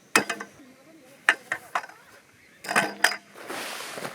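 A series of sharp clicks and knocks, a few in quick succession, then a brief hiss just before the end.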